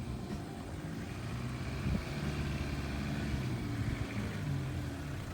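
4WD vehicle's engine running steadily at low revs, with a single thump about two seconds in.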